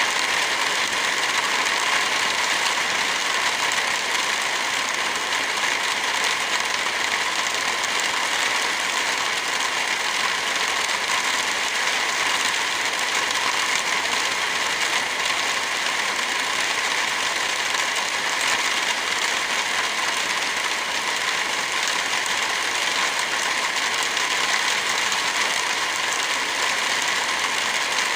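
Steady rain together with a crackling fire.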